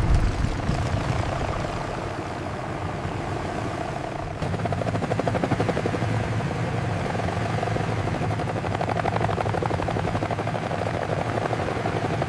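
Helicopter in flight: a steady rotor chop over engine whine, which gets louder and more pulsing about four seconds in.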